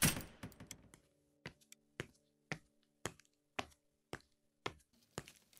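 A steady, even ticking, about two sharp ticks a second, over a faint low steady hum, with a louder rustling knock right at the start.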